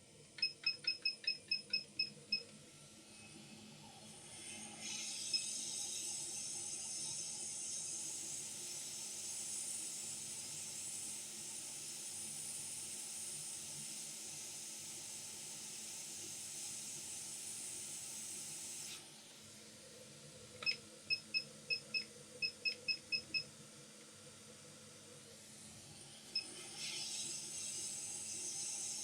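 Hot air rework station: a quick run of high beeps, then the steady hiss of its air flow for about fourteen seconds, which cuts off. Another run of beeps follows, and the air hiss starts again near the end, used to desolder a capacitor from a phone logic board.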